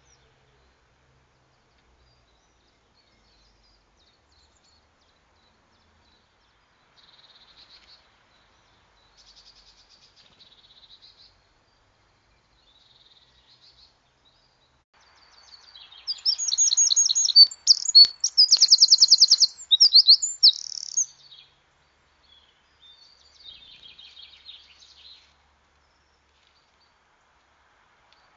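A songbird singing: a few faint, short, high trilled phrases, then about halfway through a loud, rapid trilling song phrase of about five seconds, and a fainter phrase after it.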